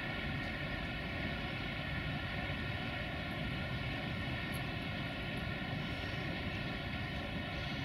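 Steady, unchanging drone of a CFR 060-EA (LE 5100) electric locomotive running, its pitch and level holding even throughout.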